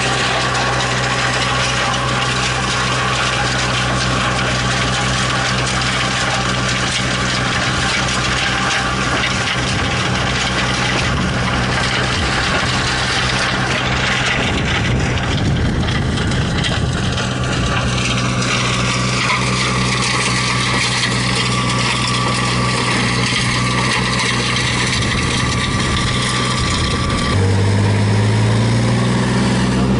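Tractor engine running steadily under load while driving an Oruç stone crusher, whose diamond-tipped rotor grinds through stony soil as a constant rough noise. Near the end the engine note steps up louder and rises in pitch.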